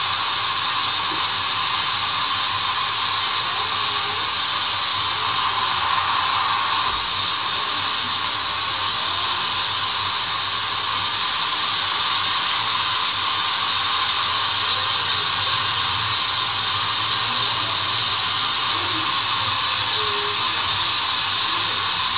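A steady, loud hiss that holds unchanged throughout, with no distinct events.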